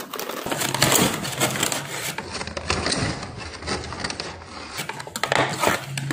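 A cardboard toy box and its inner packaging being pulled apart, bent and torn by hand: an irregular run of rustling, crinkling and knocks. The box is hard to open and gets damaged in the struggle.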